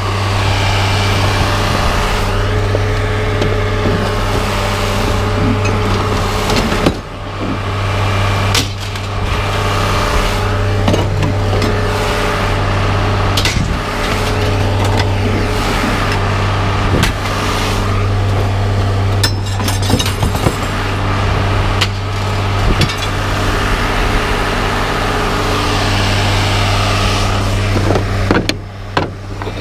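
An engine idling steadily, with scattered knocks and clatter from wooden boards and metal being handled in a pickup bed.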